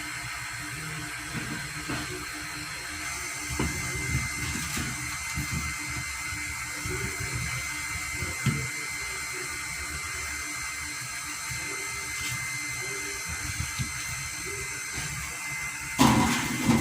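Water splashing and sloshing in a container, with irregular low knocks and a sudden loud bump near the end.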